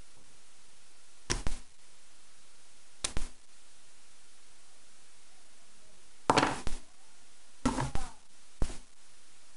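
Brass Yale rim cylinder being worked with a pick in its keyway: five short clusters of sharp metal clicks and taps, spaced irregularly over a steady hiss.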